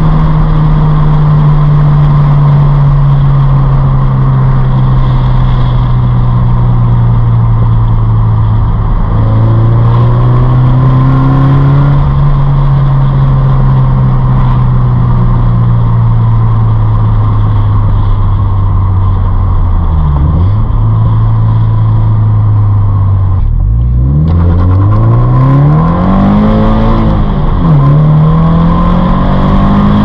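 Flat-four engine of a Subaru BRZ / Scion FR-S / Toyota GT86 heard from inside the cabin while driving. Its note sinks slowly as the car coasts for about twenty seconds. In the last ten seconds it climbs in a few pulls, each broken by a short drop at a gear change. Steady road noise runs underneath.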